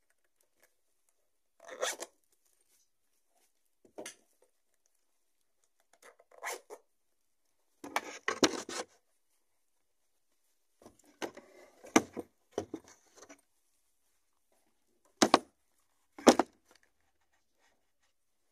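Shoes and slippers being handled and set down on a wooden surface: short bursts of scraping and rustling with pauses between, and two sharp knocks about a second apart near the end.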